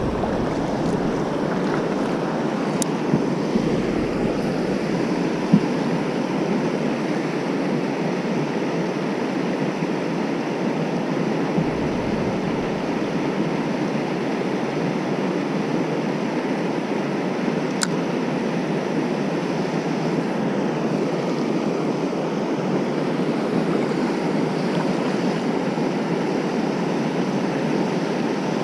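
Steady rush of river water pouring over a low-head dam and churning in the current below it.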